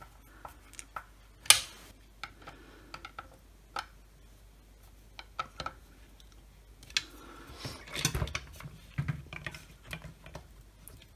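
Scattered light clicks and taps of plastic and metal circular-saw parts being handled during reassembly, with one sharper click about a second and a half in. Around eight seconds in comes a denser run of rustling and low knocks as the motor and its circuit board are fitted into the blade housing.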